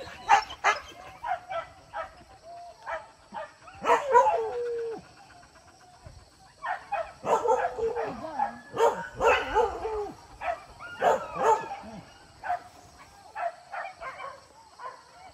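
Hunting dogs barking and yelping in irregular bursts, with some drawn-out yelps, as they bay on a wild boar in the brush.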